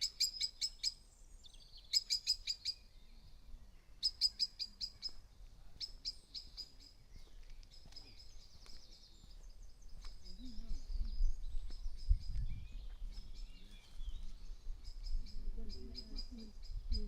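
Birdsong: a small songbird sings short, quick runs of high repeated notes, one run about every two seconds, with other birds chirping more faintly between them. From about ten seconds in, a low rumble with a few soft thumps comes in underneath.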